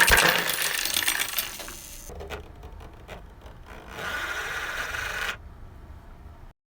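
A sudden crash that clatters on for about two seconds, then a few separate clicks and a scraping, rasping noise of about a second, all cutting off abruptly.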